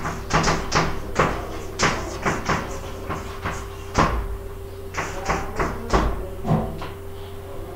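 Chalk tapping and scratching on a blackboard as words are written by hand: a quick, irregular run of sharp taps and short strokes that thins out after about four seconds and stops shortly before the end, over a steady low hum.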